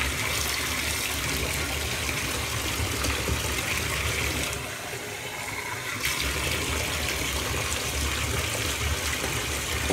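Steady rush of water running into a bathtub, briefly softer about five seconds in.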